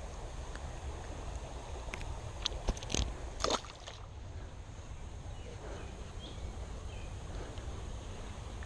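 Creek water running and sloshing steadily, with a handful of sharp clicks and knocks about two to three and a half seconds in.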